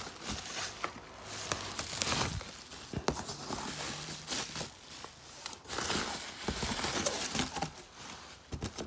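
Rustling and crinkling of cardboard, bubble wrap and plastic blister packaging as hands rummage through a shipping box, with scattered sharp clicks and knocks.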